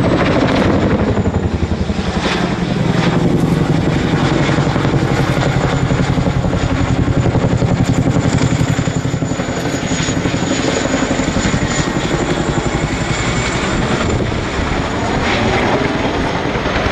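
RAF Chinook HC2/3 tandem-rotor helicopter flying close overhead: the rapid, steady chop of its two three-bladed rotors over a thin, high turbine whine from its twin Lycoming T55 turboshaft engines.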